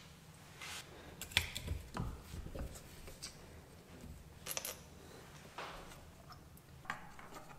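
Faint, scattered metallic clinks and taps of loose bolts and small engine parts being handled, a few sharp ones at irregular intervals.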